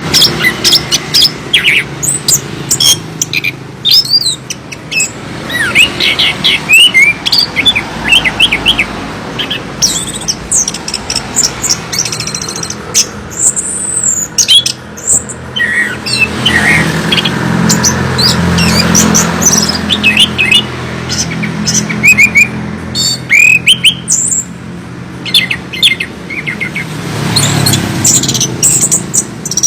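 Chestnut-capped thrush singing: a loud, varied song of rapid whistled phrases and trills with short pauses between them. A low rumble sits underneath in the middle and again near the end.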